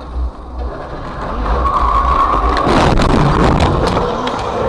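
Car crash heard from inside the dashcam car: steady road and engine rumble, a held high tone starting under two seconds in, then loud crashing and clattering from about three seconds in.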